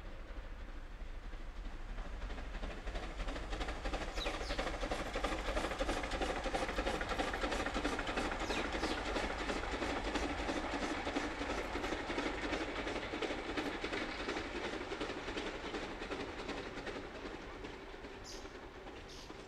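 A 762 mm narrow-gauge steam locomotive working hard and hauling passenger coaches, with wheels clattering on the rails. It grows louder over the first few seconds, then fades as the train moves away. Birds chirp near the end.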